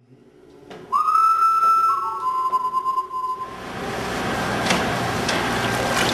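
A single long, high whistle blast of about two seconds that dips slightly in pitch partway, followed by a steady noisy wash with scattered sharp clicks.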